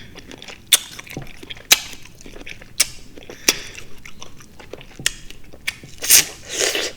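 Close-miked chewing of juicy fresh fruit, with wet mouth clicks and smacks at irregular intervals and a louder wet sound near the end.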